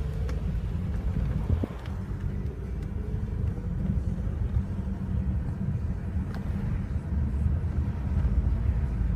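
Steady low outdoor rumble picked up by a phone microphone, with a few faint clicks.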